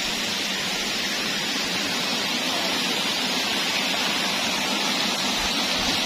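Steady rush of flowing water over rocks.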